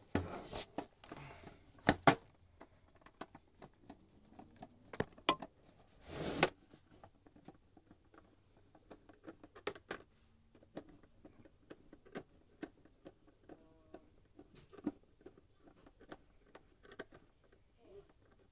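Scattered small clicks, taps and knocks of parts and tools being handled during repair work on an electric hot water dispenser, busier in the first two seconds, with a short burst of scraping noise about six seconds in.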